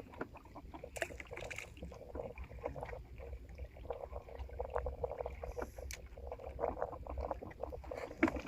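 Water lapping and splashing irregularly against a small boat's hull, over a low steady rumble.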